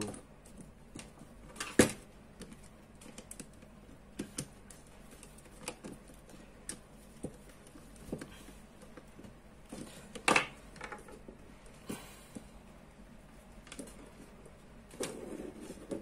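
Scattered clicks and taps of hands working a red wire into a plastic wall switch's terminals and tightening a terminal screw with a screwdriver. Two sharper knocks come about two seconds in and about ten seconds in.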